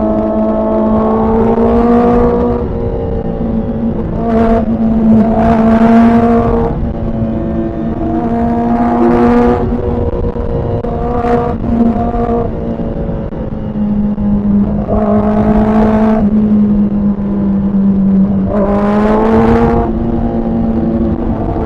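Kawasaki ZX-4RR's 399 cc inline-four running at steady mid-range revs while riding, heard onboard, with several brief louder surges of rushing noise over it.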